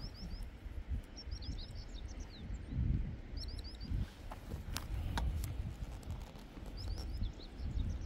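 Small birds chirping in several quick clusters of short, falling notes, over a low, uneven rumble, with a couple of sharp clicks around the middle.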